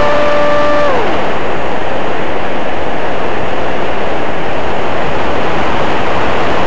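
Wind rushing over the nose-mounted camera of a Yagi electric flying wing RC plane in flight. The electric motor and propeller whine holds a steady pitch, then drops away and stops about a second in. After that only the steady wind noise remains.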